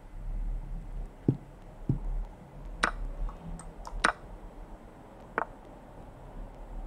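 A few separate clicks as moves are played in an online chess game on a computer: two dull knocks in the first two seconds, then three sharp clicks about three, four and five and a half seconds in. A low steady hum runs underneath.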